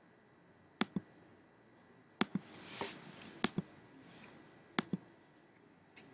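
Computer pointer clicks: four clicks spaced about a second or more apart, each heard as a quick double tick of button press and release, and a soft rustle between the second and third.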